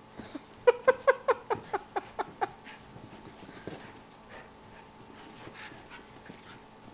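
Miniature schnauzer giving a quick run of about nine short, high yelps during rough play, each dropping a little in pitch. Afterwards the sound is much quieter.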